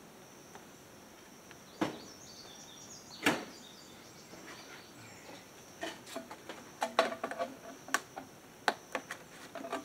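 Gutter downspout section being handled and fitted together: two sharp knocks about two and three seconds in, then a run of quick clattering knocks over the last four seconds.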